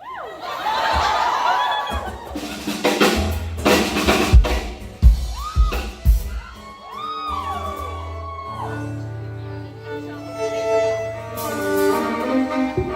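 Live band sound-checking: drum kit hits, a bass guitar holding low notes, and a violin playing sliding notes that settle into held notes.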